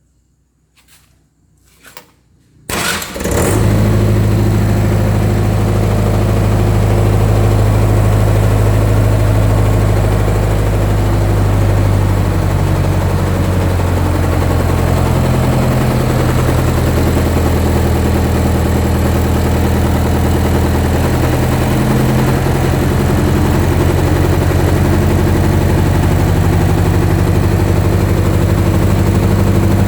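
A few short clicks, then a reconditioned Mitsubishi 4D32 four-cylinder diesel engine starts about three seconds in and runs steadily on its test run.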